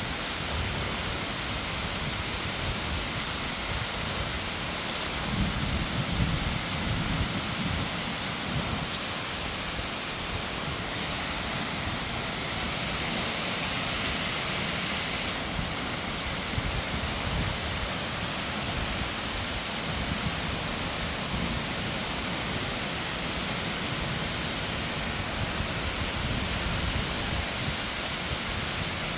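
Steady rain pouring down in a thunderstorm, with a low rumble about five seconds in that lasts a few seconds.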